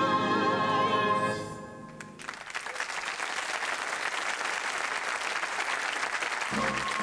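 A choir and a solo singer hold a final sung note with vibrato, which ends about two seconds in, followed by audience applause. Music starts up again under the clapping near the end.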